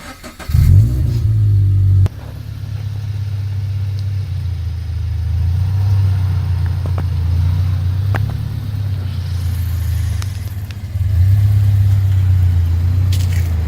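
Subaru BRZ's flat-four boxer engine starting about half a second in, running loud for a moment, then settling to a steady idle that gets louder again near the end.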